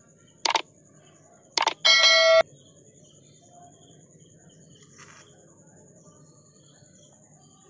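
Subscribe-button animation sound effect: two short clicks about a second apart, then a bright bell-like ding lasting about half a second. After it, only faint steady background hiss with a thin high whine.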